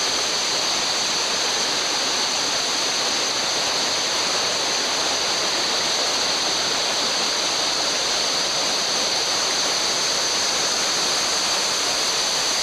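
Steady rush of a fast-flowing river, an even wash of water noise with a steady high hiss over it that does not change.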